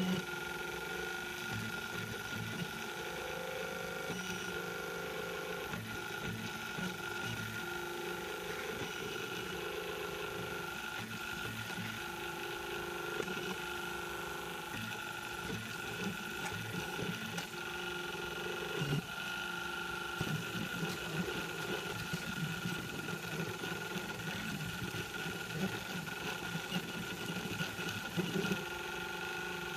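M3D Micro 3D printer running a print: its stepper motors whine as the print head moves, the lower tones jumping to a new pitch every second or so with each move, over a steady high hum, with a few light clicks.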